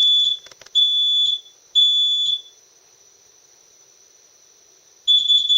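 Carbon monoxide alarm sounding under test: three loud, high-pitched beeps of about half a second each, a pause of about two and a half seconds, then the beeping starts again near the end.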